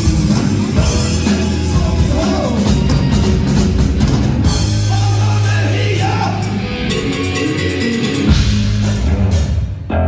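Hard rock band playing loud and live, with drum kit, bass and guitars, and a singer's voice over it.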